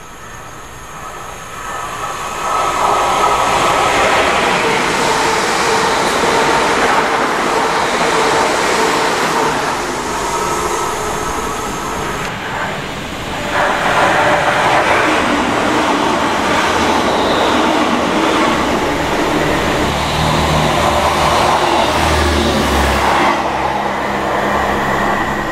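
A passenger train approaching and running through the station, with a steady loud rumble and rail noise. The sound changes abruptly about twelve seconds in, then a second loud stretch of train noise follows, with a low drone near the end.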